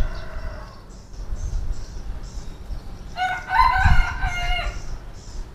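A rooster crowing once, one long call of about a second and a half starting about three seconds in, with a low thump during it.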